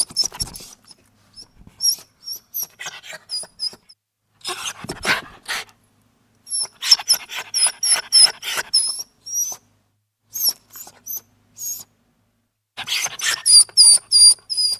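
Small dog whimpering in runs of short, high-pitched squeaks, with brief pauses between the bursts.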